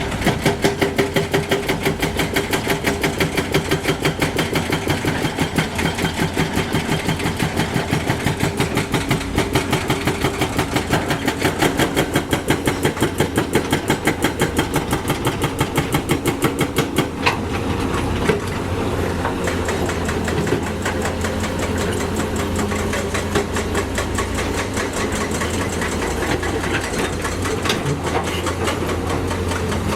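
Heavy diesel engine of construction machinery running close by, with a fast even pulsing of about five beats a second that gives way, about two-thirds of the way through, to a steadier sound.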